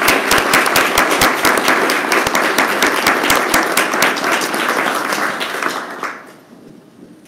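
Audience applauding: many hands clapping together, fading away about six seconds in.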